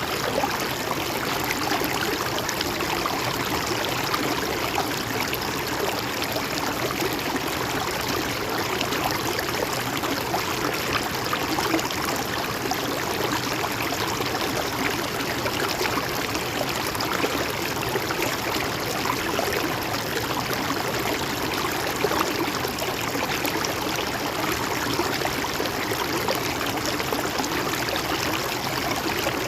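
River water flowing over rocks, a steady even rushing and babbling with no breaks.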